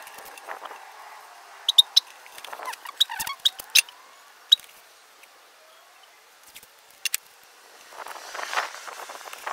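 Masking tape being laid and pressed by hand onto a plastic go-kart body panel, with tape rolls handled on the table. It gives scattered sharp clicks and taps, then a longer scratchy stretch near the end.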